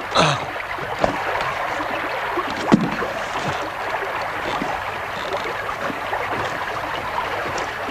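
Steady rushing of a fast river below a wooden footbridge, a noisy wash that does not let up. A short falling sound comes at the very start, and there are a couple of sharp knocks, the louder one about two and a half seconds in.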